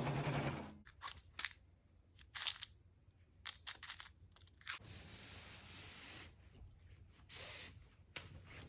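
A domestic sewing machine stitching stops under a second in. Then come scattered short clicks and rustles of fabric being handled at the machine, with a longer soft rustle around the middle.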